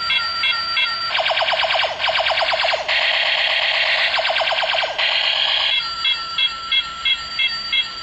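Electronic toy gun's sound chip playing effects: a repeating beep pattern of about four beeps a second, broken for several seconds by a fast string of falling laser zaps with a hissing burst in the middle, after which the beeping resumes.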